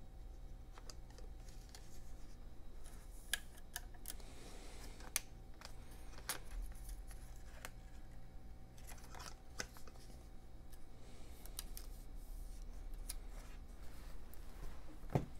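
Scattered small clicks and taps of metal and plastic laptop parts being handled as a new trackpad and its flex cable are fitted into a MacBook Air's aluminium case, over a low steady hum. There is a heavier knock near the end.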